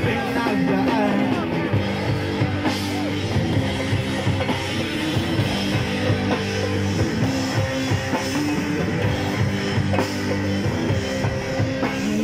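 Live rock band playing: electric guitar and bass guitar over a drum kit, with held bass notes that shift pitch under a steady drum beat.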